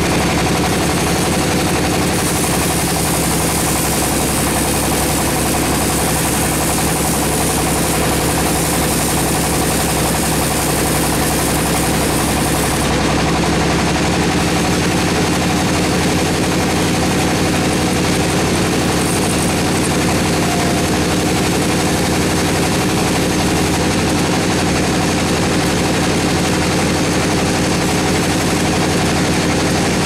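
Band sawmill running and sawing through a teak log: a loud, steady machine drone with a constant hum under a dense hiss of the blade cutting. The highest part of the hiss drops away about thirteen seconds in.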